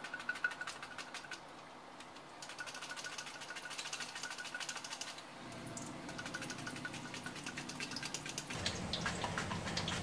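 Raw banana being sliced on a plastic mandoline slicer: rapid, regular scraping clicks of the slicing strokes, with a short pause about two seconds in. Hot oil sizzles faintly underneath as the slices drop in.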